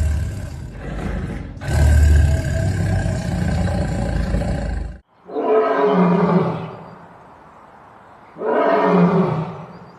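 A big cat making a harsh, rumbling growl that cuts off abruptly about five seconds in. It is followed by two long roars about three seconds apart.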